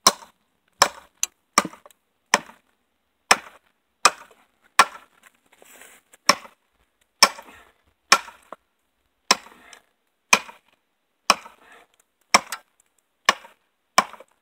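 A machete-style chopper blade striking down into the end of a 2x6 board again and again, splitting it lengthwise: a series of about eighteen sharp wooden chops, mostly about a second apart.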